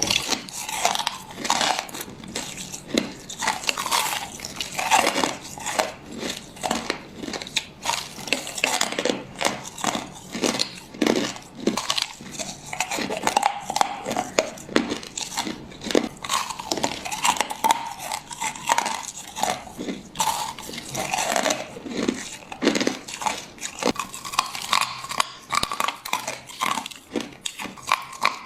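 A person biting and crunching crushed ice, a fast, irregular run of sharp crunches that goes on throughout.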